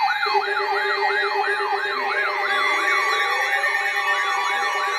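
Electronic siren-style alert tone, its pitch sweeping up and down about three to four times a second, with a steady lower tone joining just after the start and a slower rising tone partway through. It is a weather alert going off for a severe thunderstorm warning.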